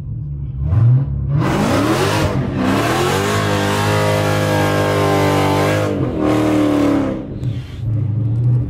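High-performance car engines at full throttle in a drag race. A quick rev about a second in, then a hard launch with the engine pitch climbing through gear changes for about five seconds, before falling back to a low idle rumble near the end.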